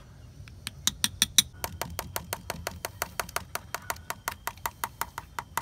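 A plastic food tub knocked again and again against the rim of an aluminium dog bowl, about five sharp clicks a second, to shake out the last of the ground meat.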